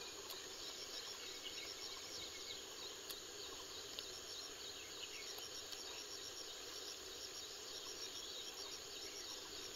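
Steady insect chirring in the background, with a few faint, sharp clicks of scissors snipping small mushrooms off a felled log.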